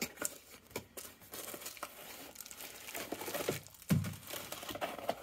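Crinkly packing wrap rustling and crackling as a packed item is lifted out of a cardboard box and handled, with a soft thump about four seconds in.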